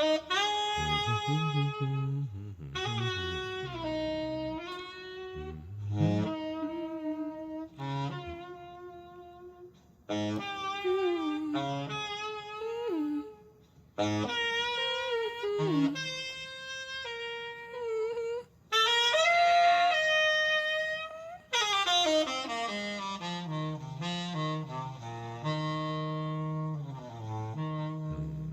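Tenor saxophone playing a slow jazz ballad solo: held notes and quick runs in separate phrases with short breaks between them, ending in a rapid flurry of notes over a steady low tone.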